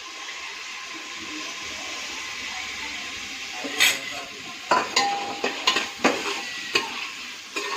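Chopped onion sizzling in hot oil in a pressure cooker, a steady hiss. From about halfway, a spoon knocks and scrapes against the metal pot several times as the onion is stirred.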